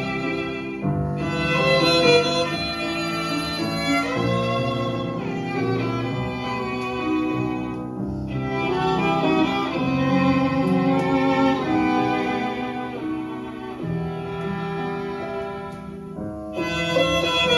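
Classical music led by violin with other bowed strings, played back from a vinyl record through a moving-coil phono cartridge.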